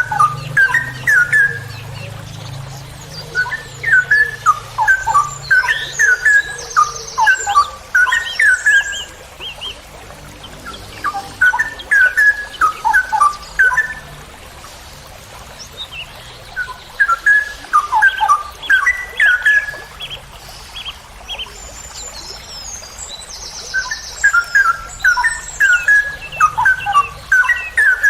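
Straw-headed bulbul (cucak rowo) singing: its long song of quick, sliding, rich notes, delivered in about five phrases of a few seconds each with short pauses between. Fainter high chirps come in between the phrases.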